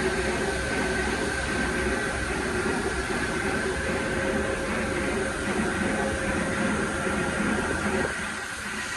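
Electric hoist motor running steadily as it lowers a large artificial marble slab, a mechanical hum with a low rumble and a steady whine. The rumble cuts off about eight seconds in as the hoist stops, leaving a steady machine hum.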